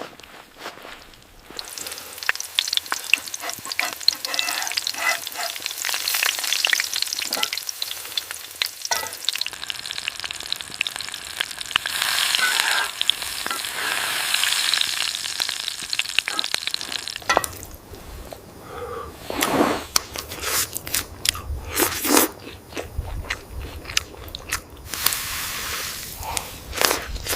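Food frying in a pan, a steady crackling sizzle, followed about two-thirds of the way in by separate knocks and scrapes.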